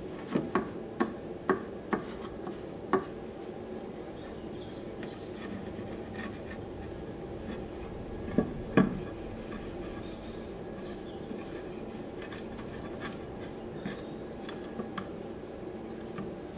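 Handling on a workbench: about six sharp knocks in the first three seconds, two louder knocks about halfway through, then light rubbing and faint ticks, over a steady low hum.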